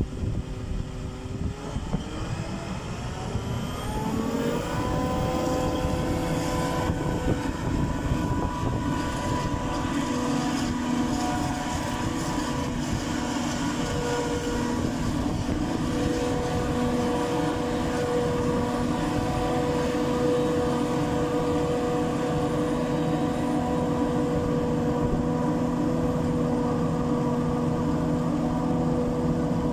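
Claas Jaguar self-propelled forage harvester chopping standing maize for silage, with a tractor running alongside. Its whine rises in pitch from about two to five seconds in as the machine comes up to speed, then holds as a steady whine over a rumble.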